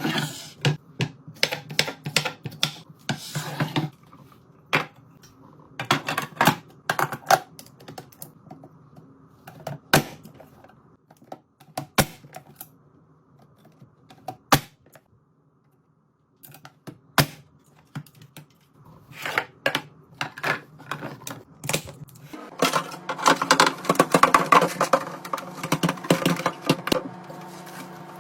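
Quick, uneven clicks, taps and knocks of containers, lids and packaging being handled and set down while restocking a fridge. The clicking gets denser and busier about 23 seconds in.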